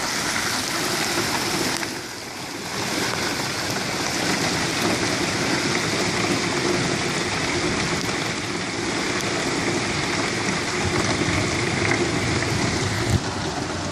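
Rainwater from the gutters pouring through PVC inlet pipes into stacked IBC tote rain barrels: a steady rush of running water, with rain falling around it.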